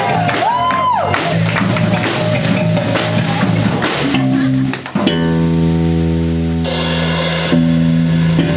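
Live rock band playing, with electric bass and drum kit. About five seconds in, the band switches to steady held notes, and a cymbal crash rings out about a second later.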